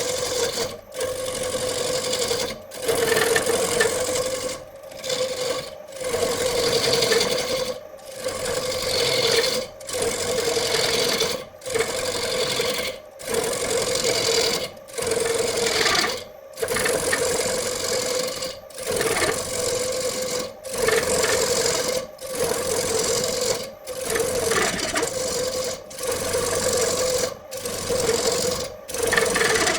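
A woodworking power tool running with a steady hum and rasping noise, broken by short drop-outs every second or two.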